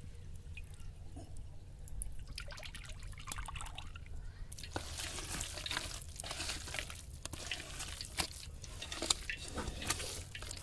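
Hands squishing and kneading a wet batter of grated bottle gourd and gram flour in an aluminium bowl: sticky, squelching wet clicks that grow dense about halfway through. A steady low rumble runs underneath.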